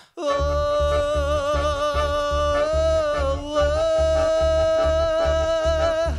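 Tango music: a long held melody note over a steady pulsing bass beat, about two and a half beats a second, with the melody sliding down near the end.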